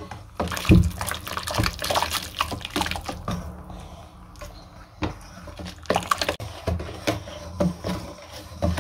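Wire balloon whisk beating a thin liquid batter of water, oil, yogurt and butter in a stainless steel bowl: the liquid sloshes and the wires clink against the metal in uneven strokes.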